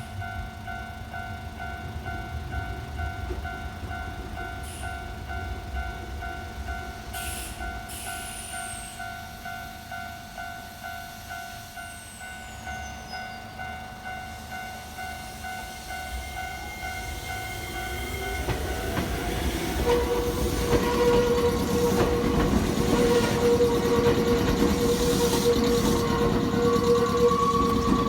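Electronic level-crossing warning bell ringing in a steady repeating ding. Some 18 seconds in the bell's tone stops and a Nankai Koya Line train comes through, its wheels rumbling and clattering louder and louder under a lower steady tone.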